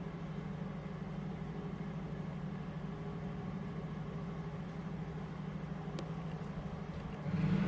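Panasonic F-560A1 56-inch industrial ceiling fan running, a steady low motor hum, with a single faint click about six seconds in.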